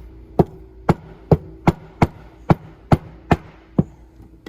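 Tapping on a Carter BBD carburetor during teardown: about ten sharp, evenly paced strikes, roughly two a second, which stop near the end. The speaker's next words suggest the part has never been apart and is stuck.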